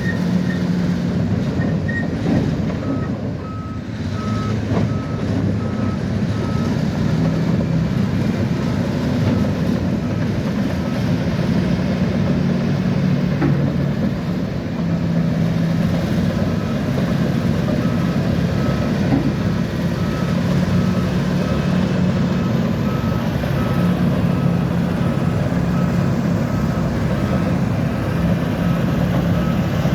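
Bulldozer's diesel engine running steadily under work, its reversing alarm beeping evenly at about two beeps a second, in two spells with a pause in between.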